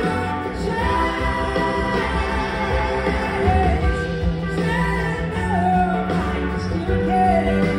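A live rock-soul band playing, with drums, bass, keyboards and electric guitars under singing voices. Long held notes slide down in pitch several times over the steady band.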